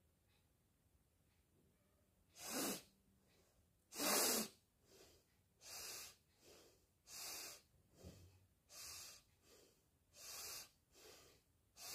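A woman sniffing hard through her nose, over and over. It starts about two seconds in: six loud sniffs, roughly one every second and a half, with a softer nasal breath between each.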